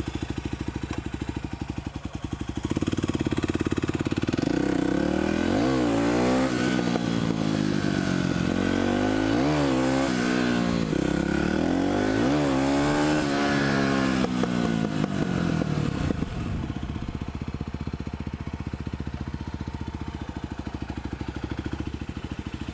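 Motorcycle engine running steadily at first. From about three seconds in it gets louder and its pitch rises and falls several times as the bike is ridden and throttled up and down. After about sixteen seconds it settles back to a steadier, quieter run.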